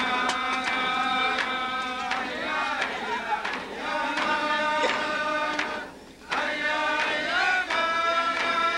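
Yup'ik dance song: voices chanting together in unison over steady beats on frame drums. The song drops out briefly about six seconds in, then starts again.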